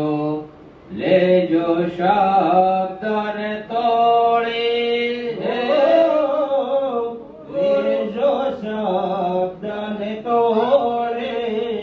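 Devotional bhajan singing: a voice chanting long, melodic sung lines.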